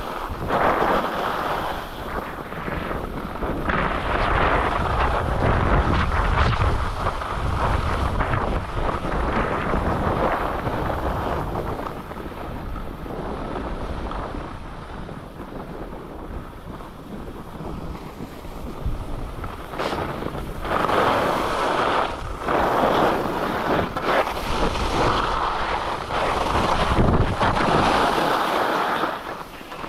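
Skis scraping and carving over packed snow on a piste, with wind rushing over the microphone. The scraping swells and fades with each turn, drops to a quieter hiss for several seconds in the middle, then comes back strongly in quick turns near the end.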